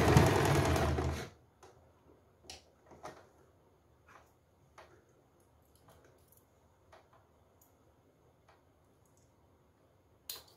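Electric sewing machine stitching fast, stopping about a second in. After that come soft clicks of fabric being handled, and a scissors snip near the end.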